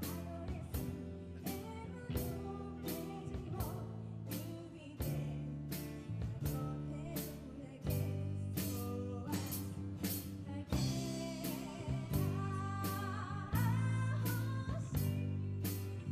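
A live band playing a song: singing over a steady drum beat of about two hits a second, with bass and electric guitar.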